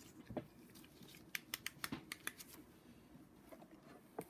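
Light clicks and ticks of tools and small metal valve parts being handled on an engine cylinder head, with a quick run of ticks in the middle and one more near the end.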